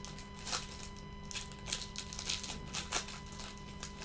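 Foil trading-card pack wrapper being torn open and crumpled in gloved hands: a string of short, irregular crinkles and crackles.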